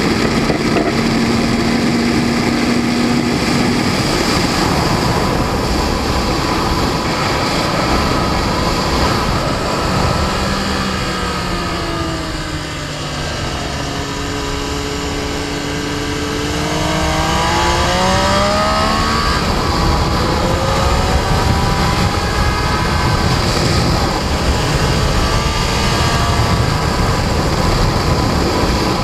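Sport motorcycle engine at track speed under heavy wind rush on the mount-level microphone. About halfway the engine note falls as the bike slows into a corner, then climbs again as it accelerates out.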